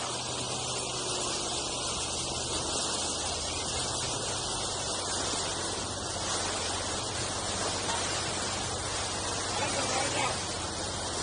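Steady rushing hiss of wind on the microphone and churning wake water alongside a cruising houseboat, with a low steady hum underneath.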